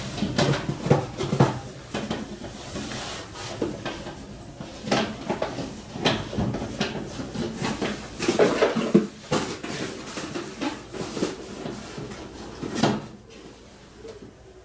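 Metal parts and tools clattering and knocking irregularly as they are handled, busiest about eight seconds in, with one last knock near the end.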